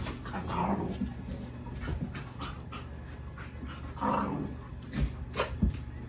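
A dog panting, with two short louder sounds about half a second and four seconds in, over a steady low hum.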